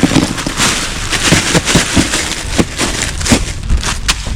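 Ice cubes being poured from a bag and clattering into a fabric pouch, a dense run of irregular clicks and crackles with rustling.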